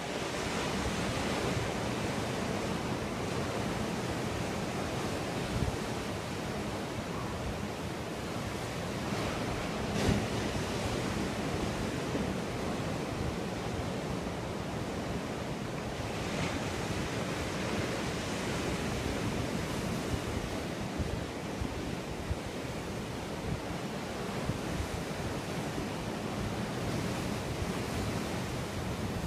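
Ocean surf washing steadily, with wind buffeting the microphone; a single short knock about ten seconds in.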